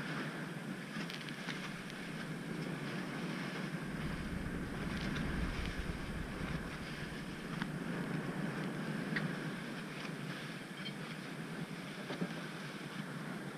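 Strong wind buffeting the microphone over water rushing and splashing past the hulls of a sailing proa beating upwind through steep chop in 20–25 knot winds, with a heavier low wind rumble from about four seconds in to about ten.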